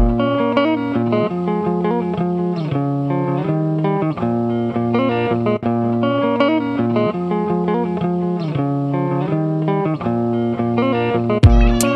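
Background guitar music with a steady melody and held bass notes, and drums coming back in near the end.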